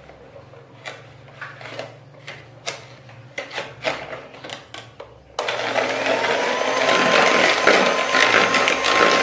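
Electric hand mixer: a few clicks and light knocks of the beaters in the bowl, then a little over halfway through the motor switches on suddenly and runs steadily with a whine, beating eggs and sugar.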